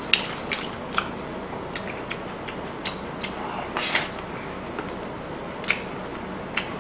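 Eating sounds: a plastic spoon clicking now and then against a small cup of kimchi stew, with a short slurp from the spoon about four seconds in.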